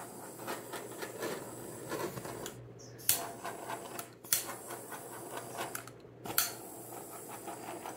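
Small handheld butane torch hissing in short passes over wet acrylic pour paint, with sharp clicks in between.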